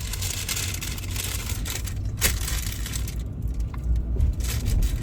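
A takeout food bag crinkling and rustling as it is handled, over the steady low road and engine noise inside a moving car, with a sharp click about two seconds in.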